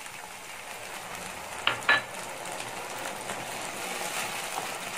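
A cornflour-thickened sauce sizzling in a hot kadai over fried spring onion and capsicum, stirred with a wooden spatula. Two sharp clicks against the pan come a little under two seconds in.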